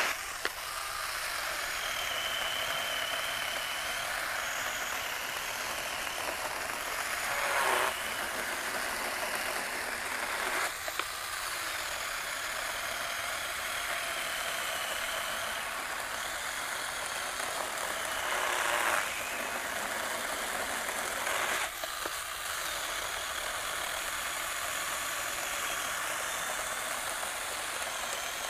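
Small battery-powered BeiHong 6-inch 21V pruning chainsaw running its chain through a roughly 4-inch log, with a steady motor-and-chain sound. It labours under the load, too underpowered to cut that size quickly, and is briefly interrupted a couple of times.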